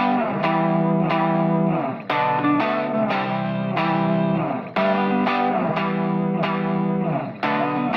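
Background music: electric guitar with effects, strummed chords struck in a repeating rhythm.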